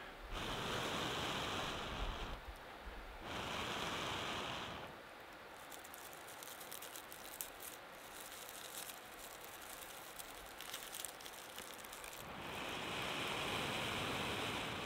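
Long breaths blown into a smouldering tinder bundle of birch bark and dry leaves to coax the ember into flame: two blows near the start and a third near the end. In the long pause between, the dry bundle rustles and crackles faintly in the hands.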